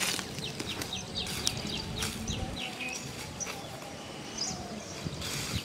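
Small birds chirping in quick runs of short, falling notes, busiest through the first half, with a few sharp crackles.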